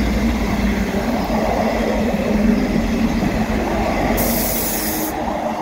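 A pair of class 158 Sprinter diesel multiple units passing through the station: a steady rumble of wheels and diesel engines with a low hum, and a high hiss lasting about a second about four seconds in.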